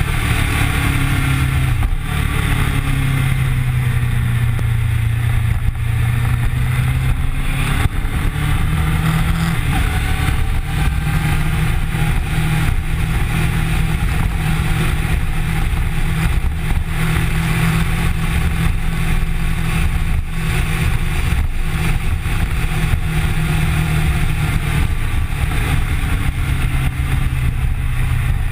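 Kawasaki Ninja sport bike's engine running as the bike is ridden at road speed, heard from a camera mounted on the bike, its pitch shifting a few times with speed. Wind rushes over the camera throughout.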